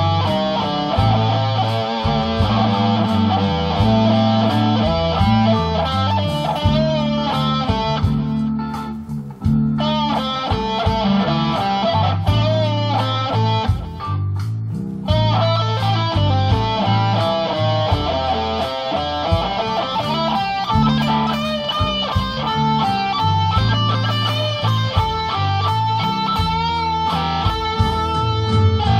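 Electric blues guitar played on a 2005 Gibson SG Standard through a Vox AC4 TV valve amp: fast single-note lead licks and riffs.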